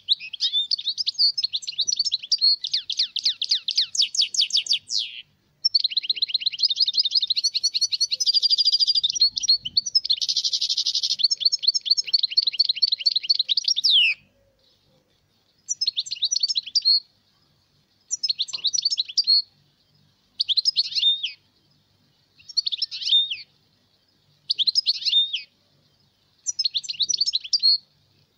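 European goldfinch song: a dense, continuous run of high twittering and trills for about 14 seconds, then short song phrases about a second long every two seconds. This is the kind of recording played to caged birds to teach them the song.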